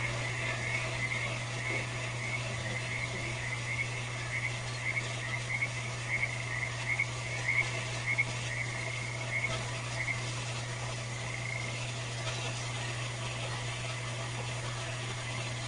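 Frogs calling at night: quick runs of short croaking calls repeating over and over, fading out about three-quarters of the way through, over a steady low hum.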